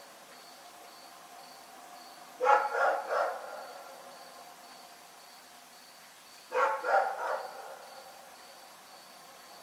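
A dog barking in two short bursts of about three barks each, roughly four seconds apart. A faint high chirp pulses steadily underneath, about three times a second.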